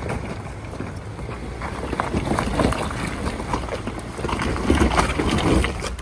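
2019 Ford Ranger's 2.3L EcoBoost four-cylinder running under load as the truck climbs loose rock, with rocks crunching and clattering under its 33-inch all-terrain tyres. The clatter grows busier about two seconds in and is loudest near the end, then cuts off sharply.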